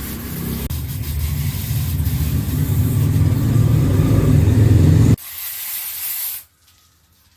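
A loud low rumble that builds and then cuts off abruptly about five seconds in, followed by a short hiss of water spraying.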